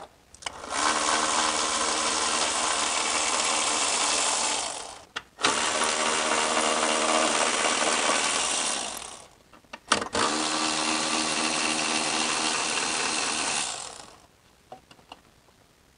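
Milwaukee cordless electric ratchet running in three long runs of about four seconds each, each winding down at the end, as it backs out the 10 mm bolts holding the throttle body.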